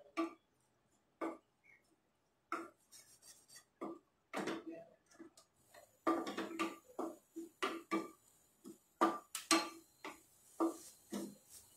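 Wooden spatula stirring and scraping grated carrot frying in ghee in a nonstick pan: short knocking, scraping strokes, sparse at first, then coming a few a second.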